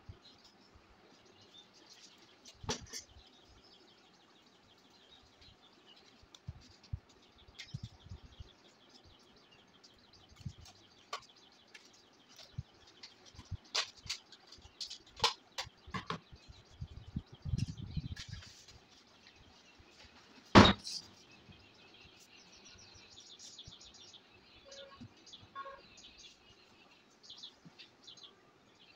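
Scissors snipping and cardboard pieces being handled on a table: scattered clicks and taps, a cluster of knocks midway, and one sharp knock about two-thirds of the way through. Birds chirp in the background.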